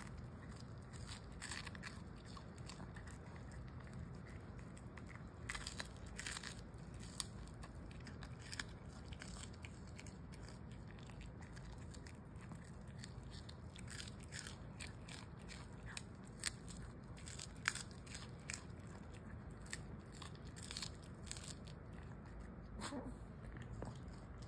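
Small dog biting and chewing a freeze-dried capelin treat, with irregular crisp crunches and crackles as the dried fish breaks apart.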